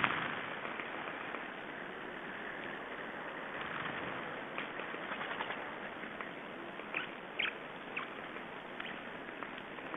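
Small songbirds give a few short, high calls over a steady hiss, mostly around seven to eight seconds in.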